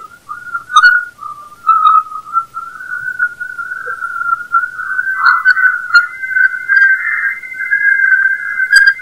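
Voyager 2 Plasma Wave Science recording of Jupiter's magnetosphere, played as sound: a wavering, whistle-like tone that drifts slowly upward in pitch, with a second steady, higher tone joining about five seconds in.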